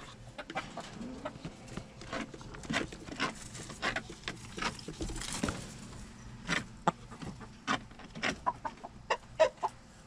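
Backyard hens clucking in a coop: a scatter of short, separate clucks throughout, coming thicker and quicker near the end.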